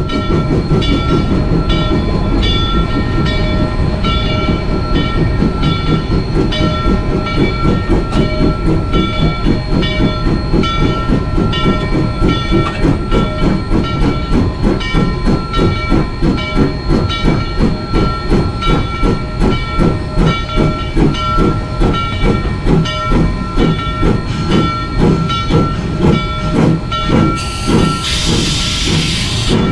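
Rio Grande Southern No. 20, an 1899 4-6-0 ten-wheeler steam locomotive, heard from its cab running slowly with a steady rhythmic beat of about two to three pulses a second. Near the end a short burst of hissing rises over it for about two seconds.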